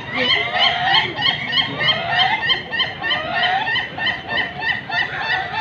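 Ayam ketawa (South Sulawesi laughing chicken) rooster crowing in its long laughing rhythm: a rapid, even run of short repeated 'ke-ke-ke' notes, about four a second.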